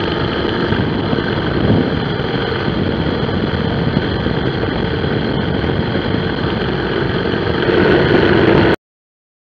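Motorcycle under way, heard from low beside its front wheel: steady engine, wind and tyre-on-concrete noise with a few constant tones in it. It cuts off suddenly near the end.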